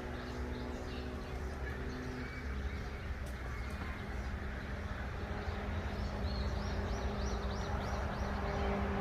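A bird giving a quick run of short, high chirps, about three a second, in the last few seconds, over a steady low hum and rumble.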